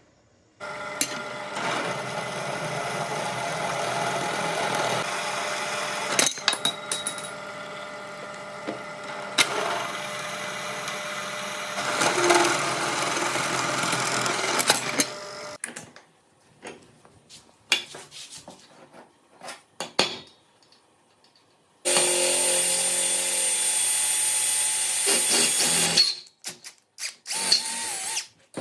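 A power tool running in two long stretches, about fifteen seconds and then about four seconds, with scattered clicks and knocks in between.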